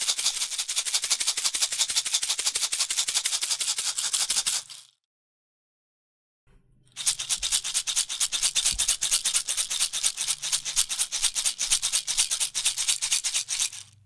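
Salt or pepper shaker shaken in rapid, even strokes, the grains rattling crisply against the shaker; two runs of about five and seven seconds with a pause of about two seconds between.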